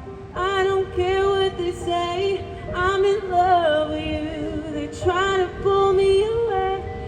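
A live band playing a pop ballad: a lead melody that bends and wavers, phrase by phrase, over a held chord.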